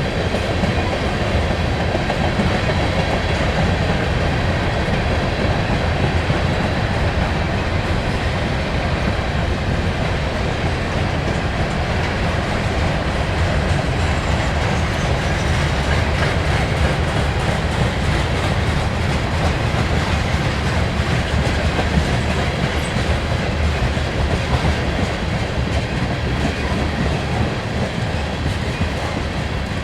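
Railway train cars rolling past at a steady, unbroken level, the wheels running over the rails.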